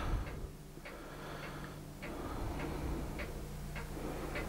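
Faint ticks, a few a second and not quite evenly spaced, over a low steady hum.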